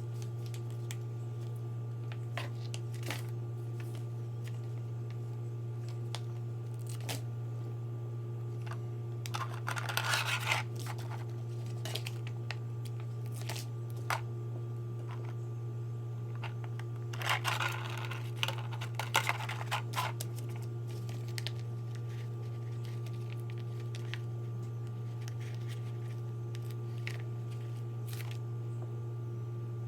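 Crinkling and tearing sounds of material being handled, in two bursts about ten seconds in and again around seventeen to twenty seconds in, with scattered small clicks over a steady low hum.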